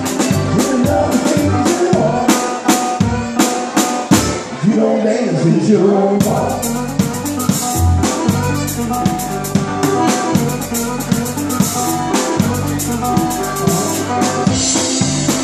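A live band playing, with drum kit, cymbals, banjo and accordion. Steady drum and cymbal strikes carry the beat, and held accordion chords come in about six seconds in.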